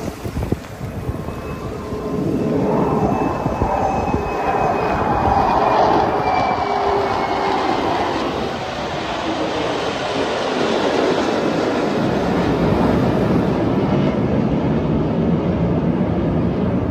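Jet aircraft flying over in formation: a loud, rushing engine roar that swells about two seconds in and holds, with faint whining tones sliding slowly down in pitch as the jets pass.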